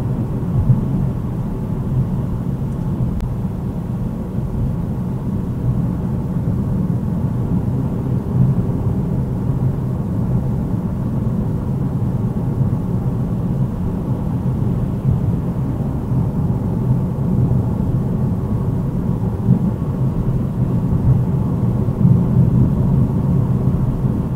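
Steady low rumble of road and engine noise inside a car cruising at about 75 km/h, picked up by the windscreen-mounted dash cam's microphone.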